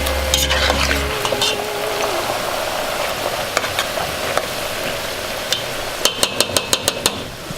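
Potato chips frying in a pan of hot oil, a steady sizzle. A low hum stops about a second in, and a quick run of sharp clicks comes near the end.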